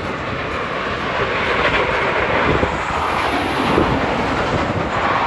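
Superman: Escape from Krypton launched shuttle coaster train rushing along the track on a test run, swelling to a loud rush and then easing off. The launch is not yet at full power.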